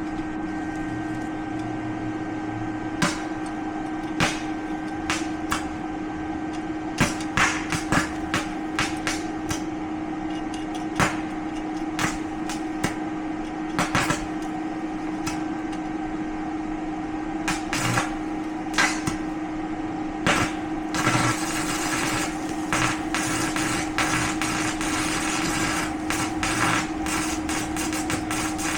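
A small 110-volt welder arc-welding a bike-lock D-ring in place. Its steady hum runs under short, irregular crackles and pops as the arc strikes and stops, turning into a continuous crackling arc for the last several seconds.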